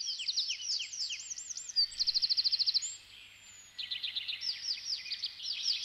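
Songbirds singing in a forest: many quick downward-sliding chirps overlapping, with a fast even trill about two seconds in and a short lull just after it.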